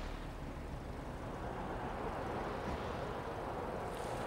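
A car driving on a wet road at night: steady engine and tyre noise.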